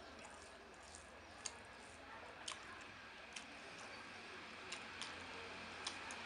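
Close-up eating sounds of someone chewing khichuri and egg curry, with about six sharp, short mouth clicks at irregular intervals.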